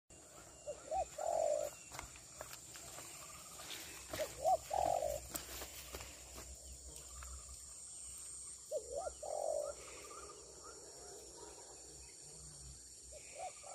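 Spotted dove cooing: a short phrase of two quick notes and a longer rolling note, repeated four times about every four seconds.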